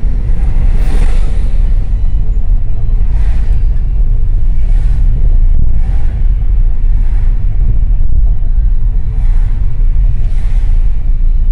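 Road and engine noise inside a moving car driving through city streets: a loud, steady low rumble with faint swells every second or two.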